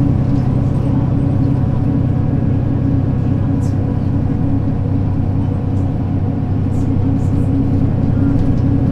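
Mercedes-Benz O 530 Citaro city bus engine running steadily, a low drone heard from inside the passenger cabin, with a few faint rattles.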